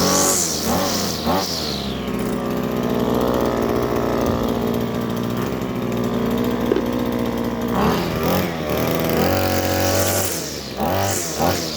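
Husqvarna 321C two-stroke string trimmer cutting thick grass, revved up and down several times in the first two seconds and again over the last four, held at a steadier speed in between.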